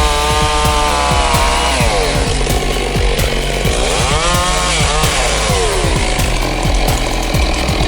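Chainsaw cutting into a large tree trunk, its engine pitch dropping as the saw loads up in the cut and climbing again as it frees, with a steady low drone underneath.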